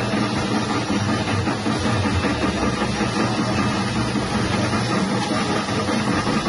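Electric chip-slicing machine running steadily, its 180-watt motor spinning the blade as it cuts thin slices of tuber.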